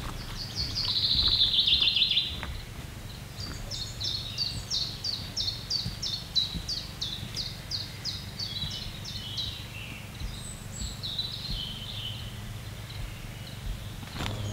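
Songbirds singing in woodland: a loud, fast trill about a second in, then a long run of quick repeated high down-slurred notes, about three a second, for several seconds, ending in a short warble.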